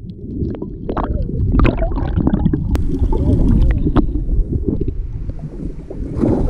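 Muffled gurgling and sloshing of water through a camera microphone held underwater, with scattered sharp clicks and splashes. It turns to open surface splashing about six seconds in as the camera breaks the water beside a shark's fin.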